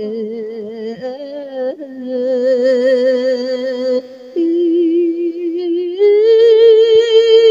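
A voice chanting a verse that invites the spirit of a dead person, in long drawn-out notes with a wide, wavering vibrato. The pitch steps up twice, about four and six seconds in, and it is loudest near the end.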